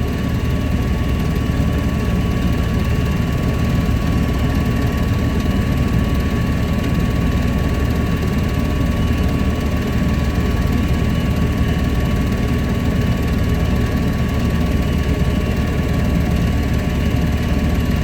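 Goodman gas-fired furnace running with its burners lit and blower fan on: a steady low rumble and rush of air with a thin, steady whine over it.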